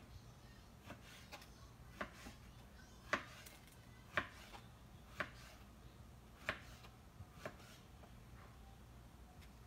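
Knife chopping on a cutting board: single sharp cuts about once a second, unevenly spaced, the loudest ones a few seconds in.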